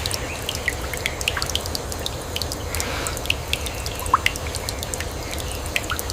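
Rain falling steadily, with many separate drops landing close by at irregular moments over a low, steady rumble.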